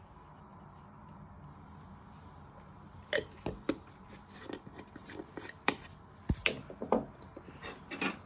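Irregular light clicks and knocks of kitchen utensils handled against a plastic mixing bowl, starting about three seconds in after faint room tone.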